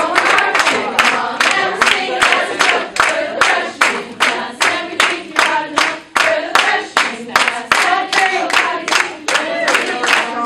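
A group of women singing a class song together, clapping in time at about three claps a second.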